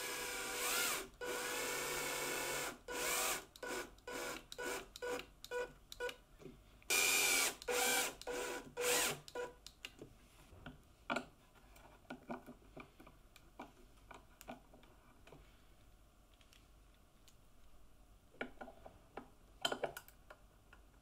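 Cordless drill driving a wood screw into a board. It runs in a couple of longer pulls, then in many short trigger bursts up to about nine seconds in as the screw goes home. Near the end come a few faint scrapes and clicks from a hand screwdriver turning the screw.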